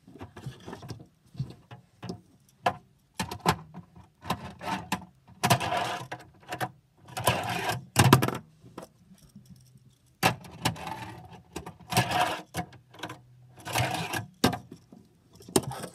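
Tech Deck fingerboard rolling in short rushes of about a second over a plastic ramp, with sharp clacks of the board slapping and landing in between.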